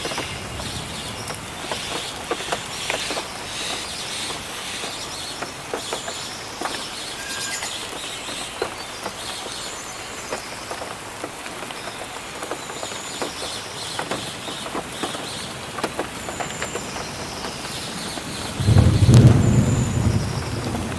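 Steady rainfall in a forest, with many individual drops and drips ticking and a few brief high chirps. About nineteen seconds in, a loud low rumble of thunder starts and rolls on.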